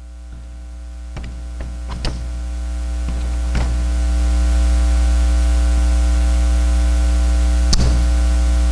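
Loud electrical mains hum that swells over the first four seconds or so and then holds steady, with a few short clicks scattered through it.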